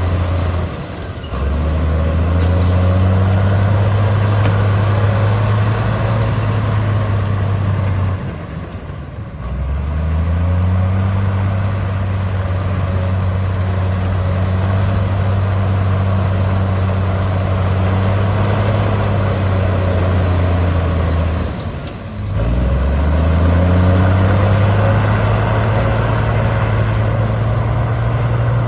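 Komatsu crawler bulldozer's diesel engine running hard. Its note drops away briefly three times, about a second in, around nine seconds in and about twenty-two seconds in, and climbs back up each time.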